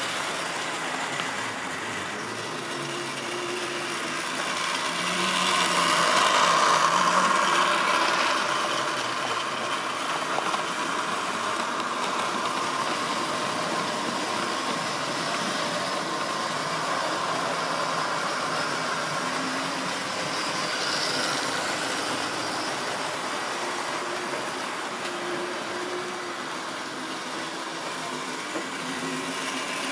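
Model railway trains running on the layout: small electric motors whirring and wheels rattling along the track, louder about six to eight seconds in as a train passes close.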